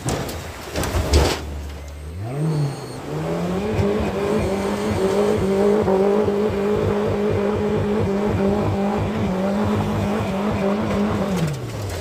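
Mercury outboard jet motor revving up about two seconds in, holding high, steady revs, then dropping off just before the end. The jet pump is not getting a bite, which the owner first guesses is rocks in the intake. Before the motor rises there is rushing water and wind noise with a few knocks.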